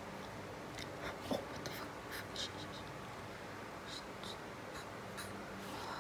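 Faint soft scratches and taps of a paintbrush laying Chinese ink on paper in short strokes: a cluster about a second in and another about four seconds in, over a steady low hiss.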